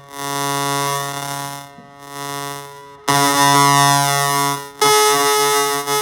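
Held buzzy musical notes from an instrument played through an effects pedal. They are quieter at first, then a louder new note comes in about three seconds in and the pitch changes again near the five-second mark.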